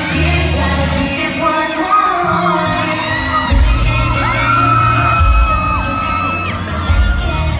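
Pop song performed live over a PA: sung vocals through microphones over a heavy bass beat. The bass drops out for a couple of seconds about halfway in, then comes back in, and a long note is held above it.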